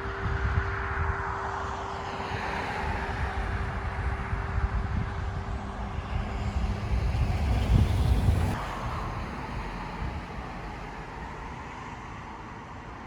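Road traffic: vehicles passing by, the loudest going past about eight seconds in, then the noise dies down.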